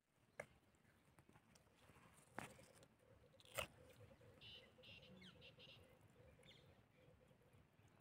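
Quiet wet crunching and scraping of a steel spoon scooping into ripe watermelon flesh, a few short crunches, the loudest about three and a half seconds in.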